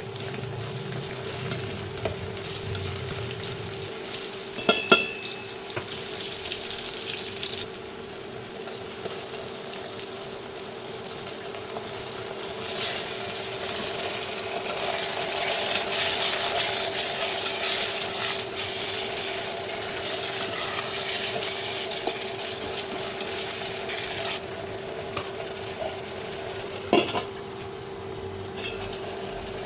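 Food sizzling in a pan while it is stirred, the sizzle growing louder for a stretch in the middle, with a sharp clink of a metal utensil against the pan twice. A steady hum runs underneath.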